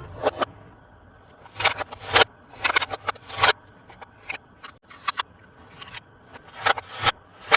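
Toy packaging being handled in an unboxing: irregular bursts of crackly, scratchy noise, several short strokes bunched together, with brief pauses between the bursts.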